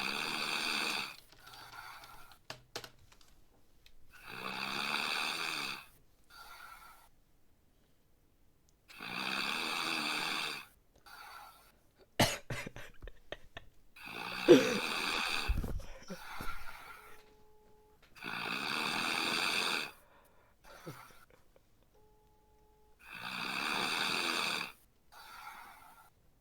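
Snoring: a long snore on each breath in, about every four and a half seconds, each followed about a second later by a shorter, softer breath out. A few clicks and a sharp bump come about halfway through.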